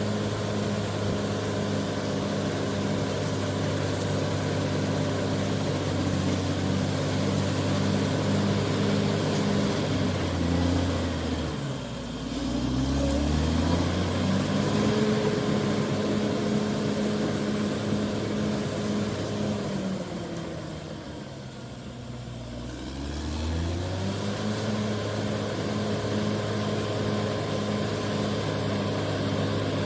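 Heavy vehicle engine running hard. Its revs drop about ten seconds in and climb back, then drop and climb again around twenty seconds. A thin high whine runs above it.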